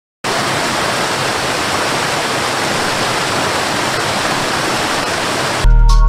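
Waterfall cascading over rocks: a steady, even rush of falling water that cuts in abruptly just after the start. Near the end, loud music suddenly takes over.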